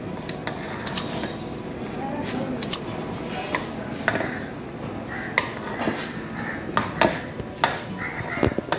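Long metal ladle clinking and scraping against the sides of a large metal cooking pot as thick gravy is stirred, with irregular sharp knocks every second or so.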